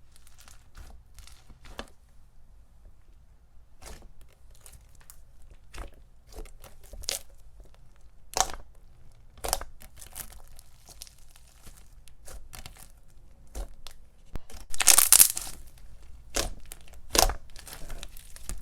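Thick, glossy glue slime packed with foam balls being squished and stretched by hand, crackling and popping in many short irregular clicks, with louder bursts near the end.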